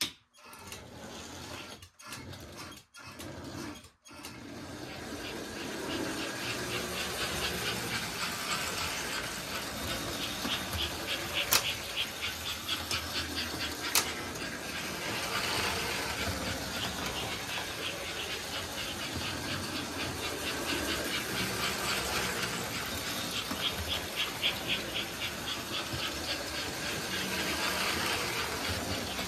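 Postwar American Flyer S-gauge steam locomotives running on tinplate track, their electric motors and wheels giving a steady mechanical running noise with a fine rapid rhythm. The sound starts abruptly and stutters off and on a few times in the first seconds before settling to a steady run, with two sharp clicks about two seconds apart near the middle.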